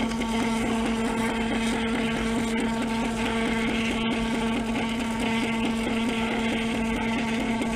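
Smartmatic vote-counting machine's built-in receipt printer running without pause, feeding out a long re-zero report: a steady motor whine with a fast, regular ticking.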